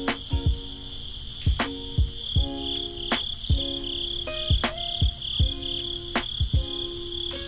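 Crickets chirping steadily in a high, pulsing trill, over lo-fi background music with soft held chords and a slow, even beat.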